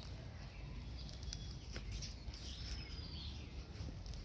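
Birds chirping and calling, some calls sliding down in pitch, over a steady low rumble, with a few short faint clicks.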